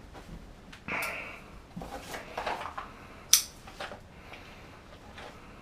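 A pack of drywall screws being opened and handled: scattered light clicks and small rattles, with one sharp snap a little past the middle.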